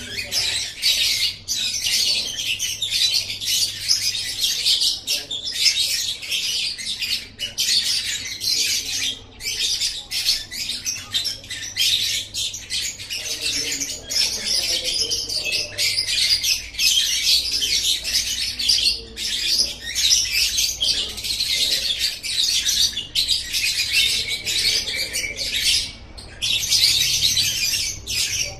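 Lovebird 'ngekek': a long, almost unbroken run of rapid high-pitched chattering, with a few short pauses.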